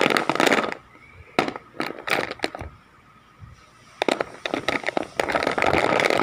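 Wax crayons in a cardboard crayon box being shuffled close to the microphone: scraping rustles and light clicks of crayons knocking together. There is a short burst at the start, a run of clicks a second or so in, and a longer spell of rustling from about four seconds in.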